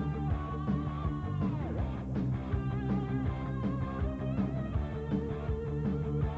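Rock music with guitar and a steady beat; a guitar note bends down in pitch about one and a half seconds in.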